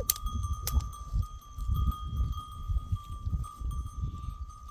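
A flock of sheep and goats on the move, with a few sharp clicks about half a second in, a steady high tone and an uneven low rumble throughout.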